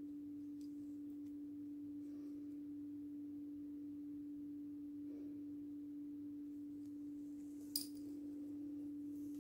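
A steady, even hum at one low pitch, with a single sharp click near the end.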